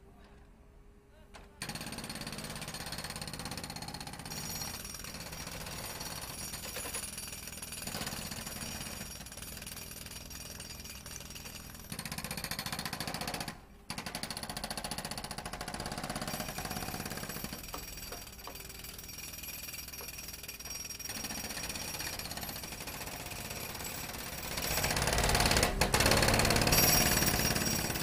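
A dubbed-in sound effect: a steady mechanical noise that starts suddenly about two seconds in, breaks off for a moment near the middle, grows louder near the end and then cuts off.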